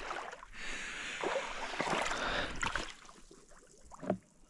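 Shallow water sloshing and splashing for about three seconds, then quietening, with one more sharp splash near the end.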